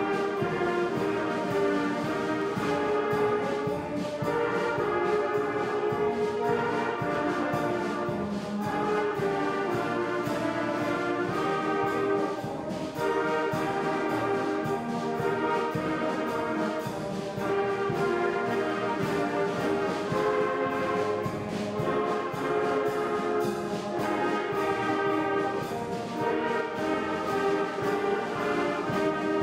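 A school concert band of young players is playing a piece steadily, led by saxophones, trumpets and trombones.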